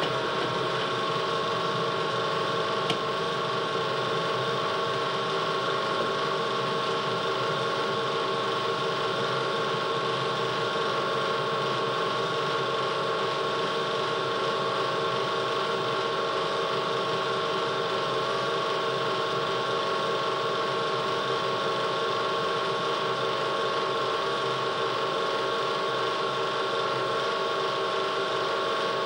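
A steady machine-like hum with a constant high whine on top, holding one level without change.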